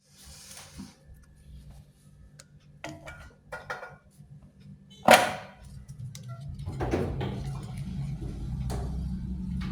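A low, steady machine hum with several sharp knocks and clanks over it, the loudest about five seconds in; the hum grows louder from about six and a half seconds in.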